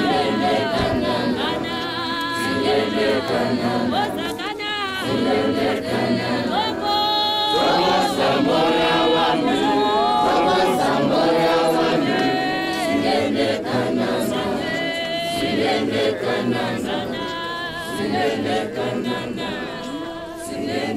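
A group of voices singing together unaccompanied, holding long notes and moving from note to note throughout.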